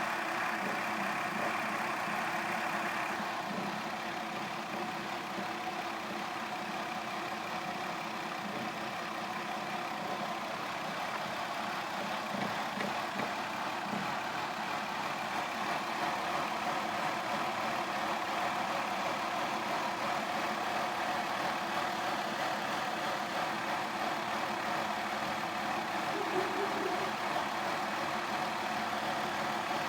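2002 Mazda Tribute engine idling steadily after a cold start, shaking and rattling: a cold-idle fault that the owner says needs throttle to keep it from stalling.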